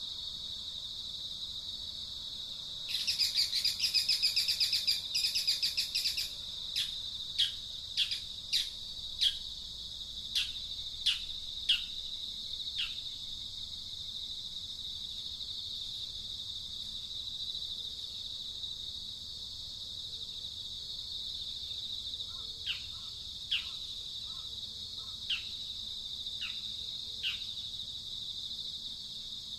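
A steady, high insect drone with a bird calling over it: a burst of rapid trilling about three seconds in, then a string of short falling chirps, several a second at first and fewer later on.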